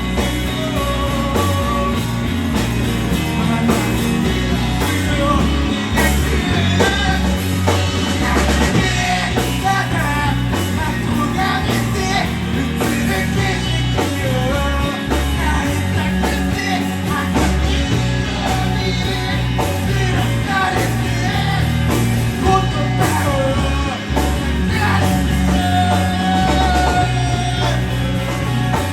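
Rock band playing a song with a singer: steady drums and bass under sung vocal lines.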